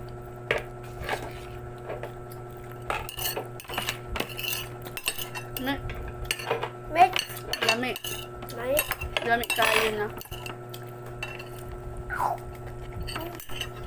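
Metal spoon clinking and scraping against a plate in short, irregular taps as rice is scooped up.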